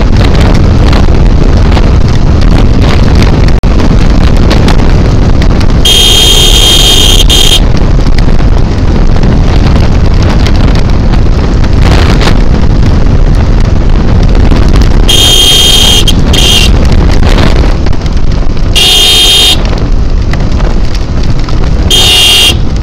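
Heavy wind rush on the microphone over a sport motorcycle's engine, riding at about 50–70 km/h. The horn sounds several times: one long honk about six seconds in, a double honk around fifteen seconds, another about nineteen seconds in, and a couple of short ones near the end.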